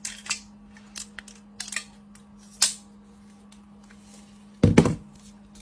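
A series of sharp clicks and taps, likely from small tools and parts being handled during a phone repair, with a louder knock about four and a half seconds in, over a steady low hum.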